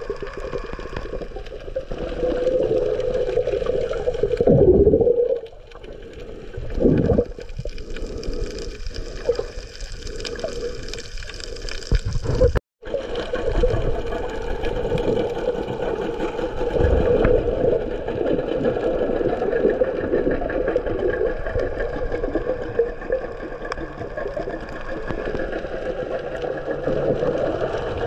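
Muffled, steady underwater wash of water picked up by a submerged camera, with a few low swells. The sound cuts out for a split second near the middle.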